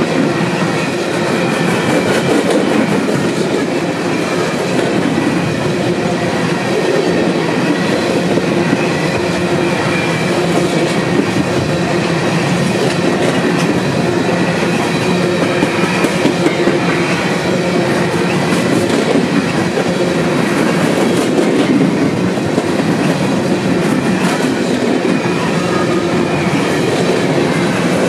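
Union Pacific freight train's coal cars rolling past at speed: a loud, steady rumble and clatter of steel wheels on the rails, with faint high ringing tones.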